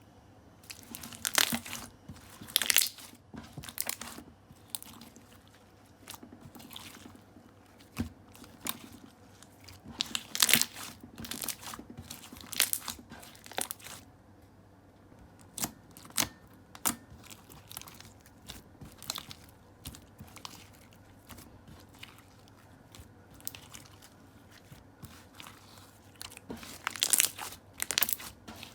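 Slime being squeezed and pressed by hand, making irregular sticky crackling pops, some louder clusters among fainter ones.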